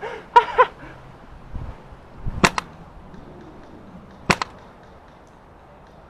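Two shots from an airsoft sniper rifle about two seconds apart, each a sharp crack followed at once by a fainter second click.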